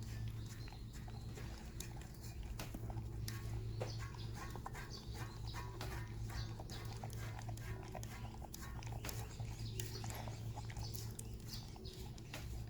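Dogs eating kibble from bowls: a quick, irregular run of crunching and clicking as they gobble and lick the bowls clean, over a steady low hum.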